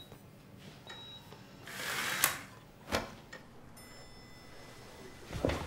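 Hospital ward sounds: a short high beep from a patient monitor about a second in, then a swishing sweep that ends in a sharp click a little after two seconds, followed by a dull thud and another thud near the end.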